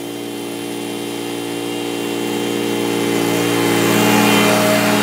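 Commercial walk-behind lawn mower engine running steadily at mowing speed, growing louder as the mower comes up close.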